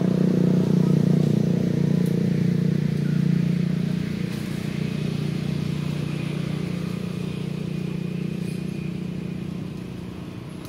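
A motor vehicle's engine running steadily, its sound slowly fading from about four seconds in.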